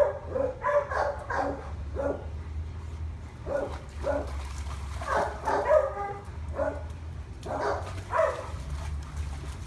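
Dog barking and yipping in short, repeated bursts while waiting for a tennis ball to be thrown.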